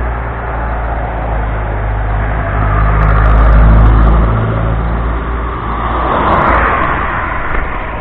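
Cars passing on the road close by, one growing to its loudest about halfway through and another going by near the end, over a steady low rumble.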